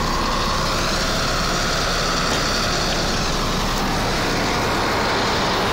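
Blizzard wind blowing hard against the microphone, with a heavy vehicle's engine running steadily underneath. The noise holds at one level throughout.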